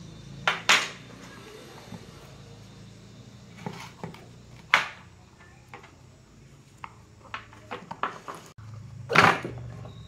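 Metal tools and drill parts clinking and knocking on a work surface as they are handled: a scattering of sharp knocks, several in quick succession around 7 to 8 seconds in and the loudest near the end, over a steady low hum.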